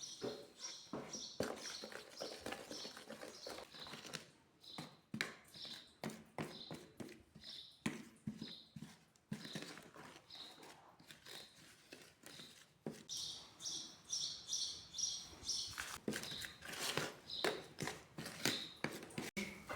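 Irregular clicks and knocks of kitchen utensils working in a bowl, with a small bird chirping in quick runs of short high notes at the start and again around two-thirds of the way through.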